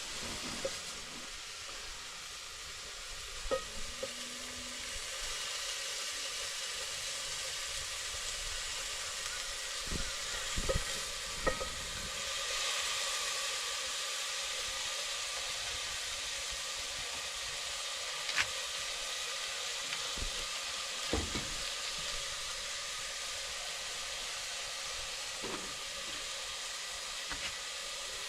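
Omena (small fish) frying with tomatoes in a pan: a steady sizzle, with occasional clicks and knocks.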